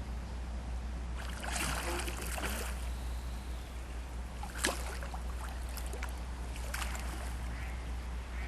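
River water splashing and sloshing at the bank, with a cluster of splashes about a second in and single sharp ones near the middle and later. A steady low rumble runs underneath.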